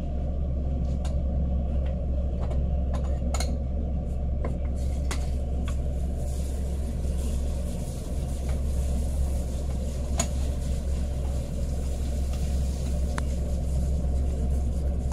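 Steady low drone of a running vacuum pump evacuating a Schlenk line. Scattered knocks and clicks from the Dewar flask and glassware being handled. A faint hiss joins from about six seconds in, as the liquid nitrogen boils off around the cold trap.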